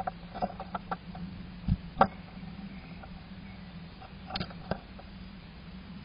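A European starling clambering at the entrance hole of a wooden nest box. Its claws and beak make a series of sharp taps and scratches on the wood, with two louder thumps about two seconds in and another short cluster of taps about four seconds in. A faint low hum runs underneath.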